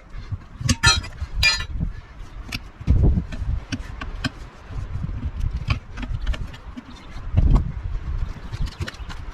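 Pry bar levering a trailer tire's bead over the wheel rim: metal clinks and scrapes, with a few ringing strikes in the first second or two and heavier thumps about three seconds in and again near seven and a half seconds.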